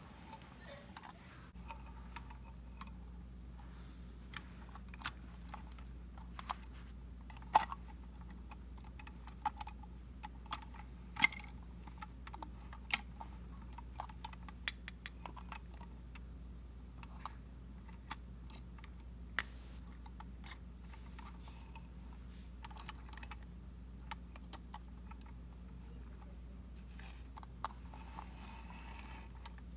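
Scattered clicks and taps of hard plastic as a toy front-loader garbage truck's lift arms are worked by hand, raising and tipping a small toy dumpster. A steady low hum starts about a second and a half in.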